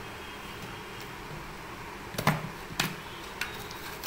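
Foil induction seal on a plastic protein-powder tub being punctured and torn open: several sharp crackles and snaps from about halfway in, the first one the loudest.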